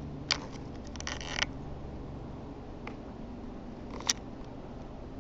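Handling noise from a handheld camera: a few light clicks and a short rattle about a second in, over a steady low hum.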